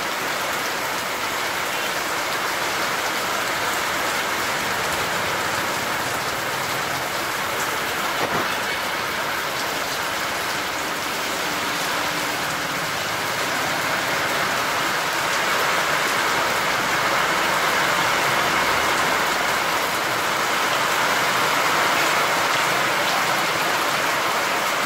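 Rain falling steadily on wet ground and puddles, getting a little louder about halfway through.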